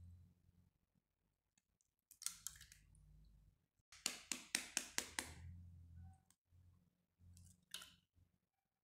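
Steel spoon tapping eggshells to crack them: a couple of light taps about two seconds in, then a quick run of about seven taps, and a single tap near the end.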